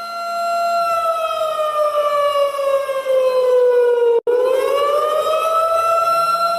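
Warning siren sounding a steady wailing tone. Its pitch slides down over about three seconds, cuts out for an instant, then climbs back up to the steady tone.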